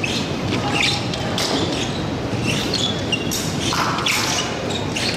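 Large-hall ambience: a steady background murmur with scattered sharp clicks and knocks.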